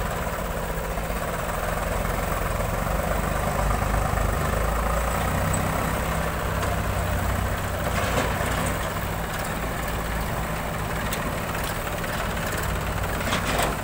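Swaraj 735 FE tractor's three-cylinder diesel engine running steadily as it pulls a trolley loaded with soil.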